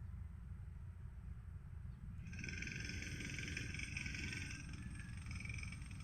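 A steady low rumble, joined about two seconds in by a dense, high-pitched chorus of animal calls that carries on from there.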